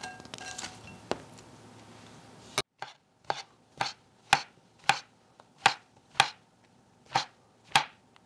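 Cabbage leaves dropping into a glass bowl with a faint ring, then a broad kitchen knife slicing shiitake mushrooms on a wooden cutting board: about ten sharp knocks, roughly two a second.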